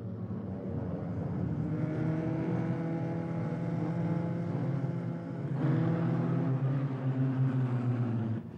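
Engine of a pre-war Mercedes-Benz Grand Prix racing car running hard on the track, its pitch climbing slowly as it gathers speed. A little past halfway the sound changes abruptly to a steady, slightly louder engine note.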